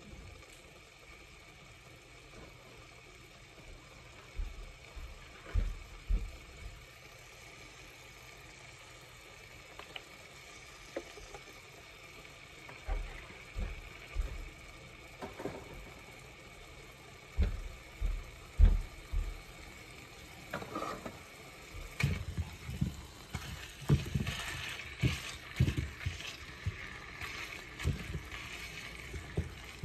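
Kitchen work sounds: scattered knocks and clatter through the first two-thirds, then from about two-thirds in a utensil scraping and chopping raw ground beef in a nonstick frying pan, over a faint steady sizzle.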